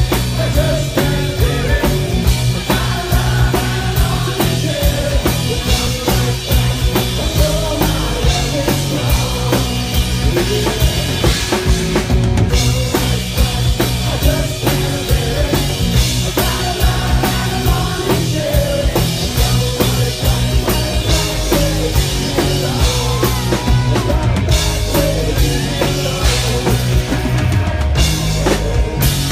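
Live rock band playing loudly, with a male lead singer singing into a microphone over a steady drum-kit beat.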